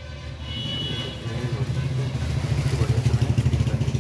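A motor vehicle's engine running with a low, rapidly pulsing rumble that grows louder over the first couple of seconds.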